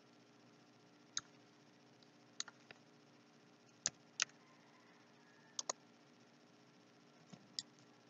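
Scattered single clicks of a computer mouse and keyboard keys, about ten in all, some in quick pairs, over a faint steady hum.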